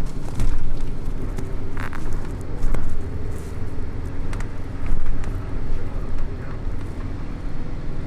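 An engine running steadily with a low rumble, with scattered knocks and rattles over it.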